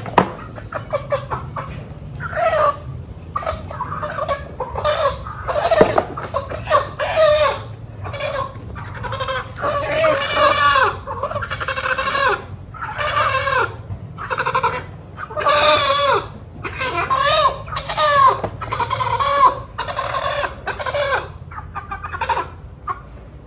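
Chickens clucking and calling loudly, a short pitched call every half second to a second throughout, over a faint steady low hum.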